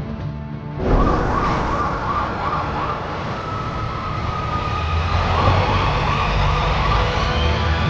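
Police siren wailing with a rising and falling tone over loud vehicle noise, cutting in suddenly about a second in.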